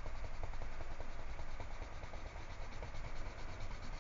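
Colored pencil scratching across paper in quick, rhythmic back-and-forth coloring strokes.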